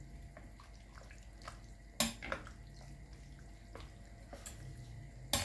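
A spoon stirring a wet, chunky ceviche mixture in a glass bowl: soft liquid stirring with small clicks of the spoon on the glass. There are two sharper clinks, one about two seconds in and one near the end.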